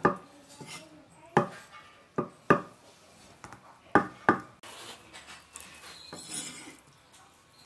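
Cleaver chopping chicken blood curd on a wooden chopping board: about six sharp knocks of the blade striking the board, unevenly spaced over the first four and a half seconds, then it goes quieter.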